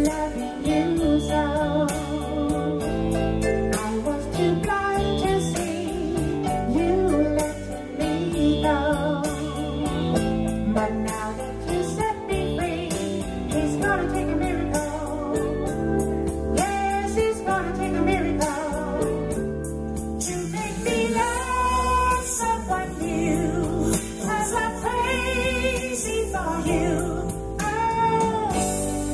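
A man singing into a microphone over backing music with keyboards and a steady beat, his held notes wavering with vibrato.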